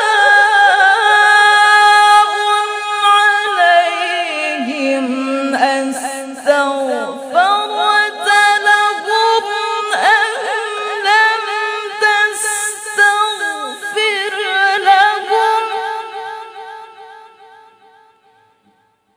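A woman's melodic Quran recitation (tilawah) through a microphone: one long ornamented phrase of held, wavering notes that sinks lower about four seconds in, climbs back with quick turns, and fades away about sixteen seconds in, closing the verse.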